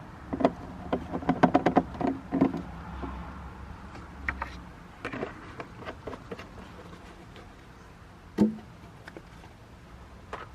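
Hollow plastic knocks and clatter from empty motor-oil quart bottles being handled: a quick run of clicks and knocks in the first couple of seconds, scattered knocks after that, and one louder hollow knock near the end.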